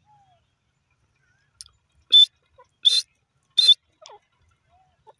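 Grey francolin calling: three loud, harsh notes about two-thirds of a second apart, starting about two seconds in, with a few faint softer chirps around them.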